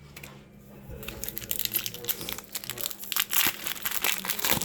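Crinkling of a foil Magic: The Gathering booster pack wrapper being handled, a dense run of crackly rustles starting about a second in.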